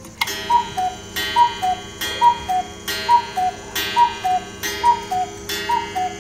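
Black Forest cuckoo clock striking the hour: the cuckoo's two-note whistle, high then low, repeats about once every second, seven calls in all. Each call opens with a sharp strike that rings on.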